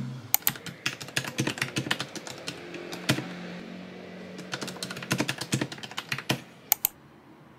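Typing on a mechanical keyboard: quick runs of key clacks with a brief lull about halfway, ending in two sharp clacks before the typing stops.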